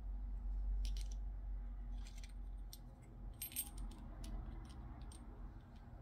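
Small metal lock parts clicking and clinking as a car door lock cylinder and its spring cover are handled and fitted together by hand, with a loudest clink about three and a half seconds in. A low steady hum runs underneath.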